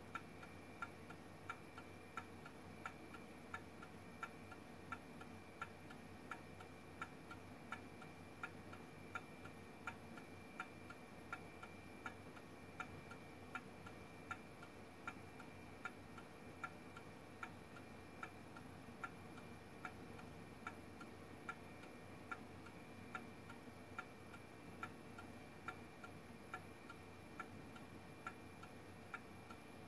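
Coffee-cup gamma Stirling engine running on the heat of hot water, its mechanism giving a faint, regular tick about twice a second.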